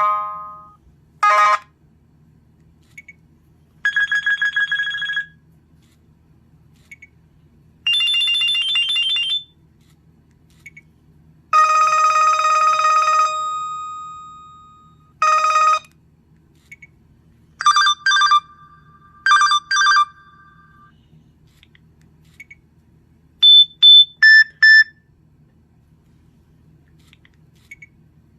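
LG Venus cell phone speaker playing a series of different short ringtones one after another. There are about eight brief melodies, each a second or two long with pauses between, and the last is four quick beeps.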